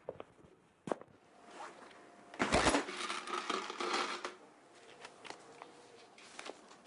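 Coins rattling and clinking inside a glass jar, loudest in a sudden burst about two and a half seconds in, followed by lighter clicks and paper rustling as an envelope is handled.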